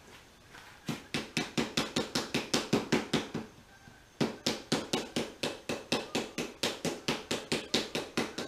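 Rapid, light tapping with a small hard-faced tool, driving new felt run channel into the groove of a bus window frame, about six taps a second. The tapping pauses briefly just before halfway and then picks up again.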